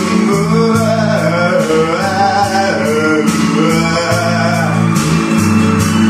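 A man singing karaoke through a microphone over a backing track with guitar and a steady drum beat. His voice stops about five seconds in while the backing track plays on.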